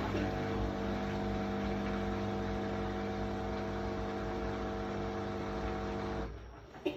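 Hoover H Wash 300 Plus washing machine's drain pump running with a steady electric hum, typical of the drain-out at the start of a spin-only programme. It cuts out about six seconds in.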